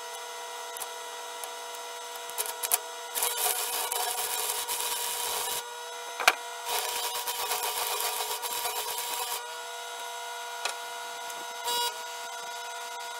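Stick welding with a Sears Craftsman 100-amp AC arc welder on steel tubing: the arc crackles and sizzles in two runs of a couple of seconds each, about three and about seven seconds in, with a few short pops as the rod is struck. A steady electrical hum lies underneath.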